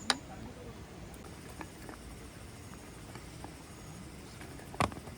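Two sharp clicks or knocks, one right at the start and one near the end, with a few faint ticks between, over low steady background noise.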